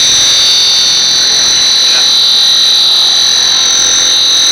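CNC milling machine's face mill cutting a metal workpiece, giving a loud, steady, high-pitched whine.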